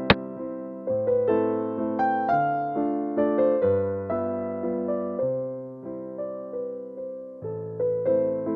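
Background piano music of struck, decaying notes, with one sharp click right at the start: the sound effect of a xiangqi piece being set down on the computer board.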